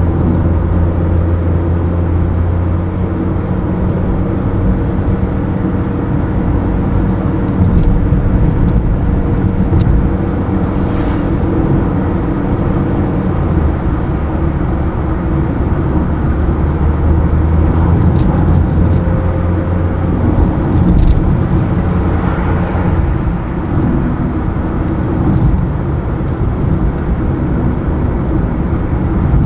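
A car driving along a road, its engine running with a steady low hum over tyre and road noise. The engine note shifts a few times, and there are a few faint ticks.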